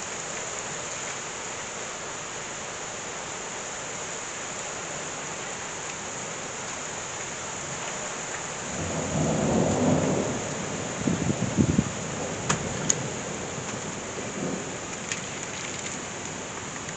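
Thunderstorm downpour: heavy rain hisses steadily. About nine seconds in, a roll of thunder rumbles up and ends in a few sharp cracks, then the rain carries on alone.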